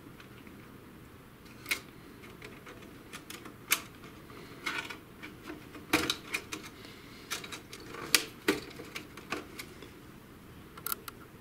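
Irregular sharp plastic clicks and taps as wire connectors and ribbon cables are pulled from the main board of an HP Smart Tank inkjet printer and the plastic chassis is handled.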